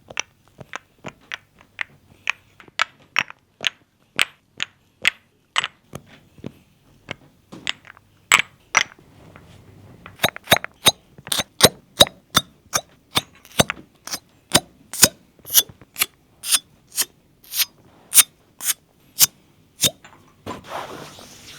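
Copper cupping cups being set on and pulled off the skin again and again, each one giving a sharp suction pop, about two pops a second. The pops grow louder about halfway through, and a rustling noise comes in near the end.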